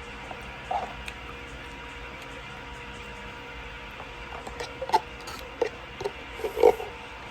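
A few short eating noises, mouth and utensil sounds from eating spicy ramen, one near the start and a quick cluster in the second half, over a steady background hum.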